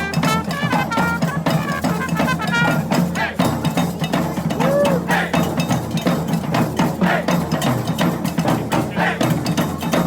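Brass band playing: short, repeated horn notes for about the first three seconds, then a drum-heavy passage of rapid drum strikes with bass drum underneath.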